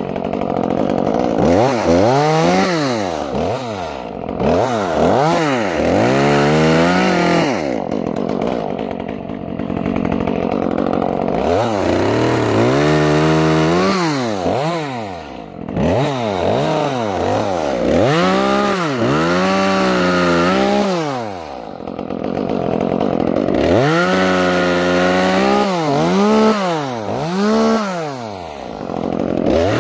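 Echo CS-355T top-handle two-stroke chainsaw revving up and down over and over, its pitch rising and falling with each squeeze of the throttle, while cutting up small branches.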